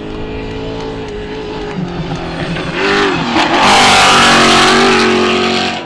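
Trophy Truck race engines: one runs at a steady note, then another revs and accelerates hard at full throttle from about halfway through. That part is the loudest, with a rush of dirt thrown by the spinning tyres, and it cuts off suddenly near the end.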